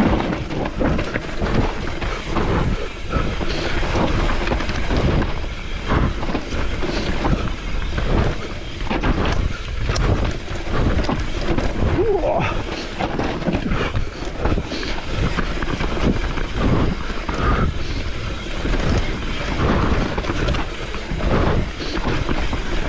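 Mountain bike riding down a rough trail: tyres rumbling over dirt and roots, with constant clattering knocks from the bike and wind buffeting the microphone.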